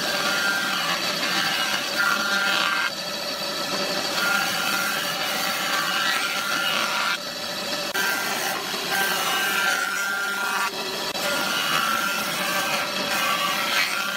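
Jointer cutter head on a combination woodworking machine planing a wooden beam as it is fed across the bed: a steady, loud machine whir with the rasp of the knives cutting wood. The sound shifts abruptly every few seconds.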